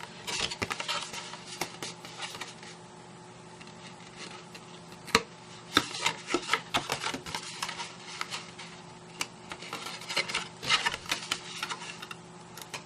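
Cardstock rustling and crackling as it is folded up into a box, with scattered sharp taps and clicks. It is quieter for a few seconds after the start and busier in the second half.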